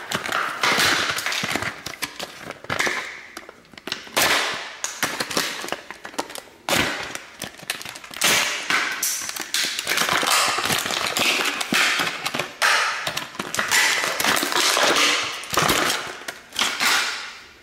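Stiff plastic blister packaging being cut open with a utility knife and pried apart, the plastic crackling and snapping in dense, irregular bursts.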